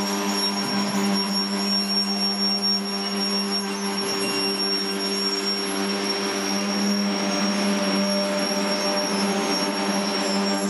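Engine of a track-construction work train running steadily at a constant speed, a continuous even drone.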